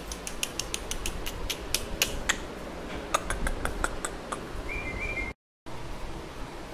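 Siberian husky puppy claws clicking and tapping on a wooden floor in quick, irregular ticks, followed by a brief high squeak near the end.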